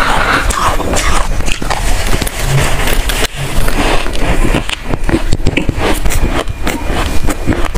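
Freezer frost being bitten and chewed close to the microphone: an irregular run of crunches and crackles.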